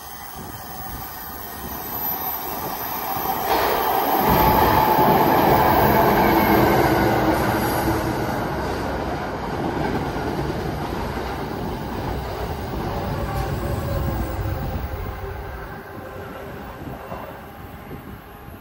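An NJ Transit commuter train of Comet V coaches passing through a station, wheels running over the rails. It grows louder, is loudest from about four to eight seconds in with a high wheel squeal, stays steady, then falls off near the end.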